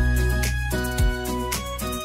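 Background music with a steady beat: a deep drum hit about once a second, quicker ticks between, and sustained chords.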